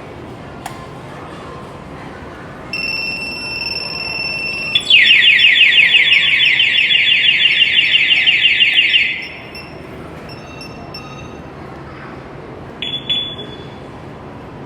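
Motorcycle security alarm sounding: a steady high beep for about two seconds, then a loud, rapidly warbling siren for about four seconds that cuts off, followed by a few short chirps.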